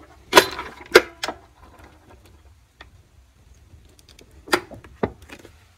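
Sharp knocks and clicks from handling a tilt-head stand mixer and its stainless steel bowl as the head is lowered into place, with the motor not yet running. The loudest knocks come about half a second and a second in, and two more come near the end.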